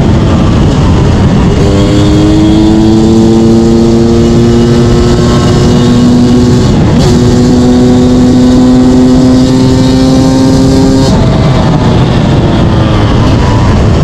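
Yamaha YZ250 two-stroke single-cylinder engine pulling hard under throttle. Its note climbs from about a second and a half in, breaks briefly about seven seconds in for a gear change, and holds high. Near the end the throttle closes and the revs fall away.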